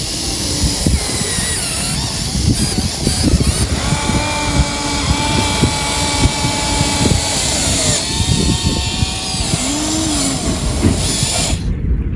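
Huina 1593 radio-controlled excavator working: the whine of its small electric motors holds steady pitches and sometimes slides up or down, over a continuous gritty scraping and crunching. Near the end the sound changes abruptly.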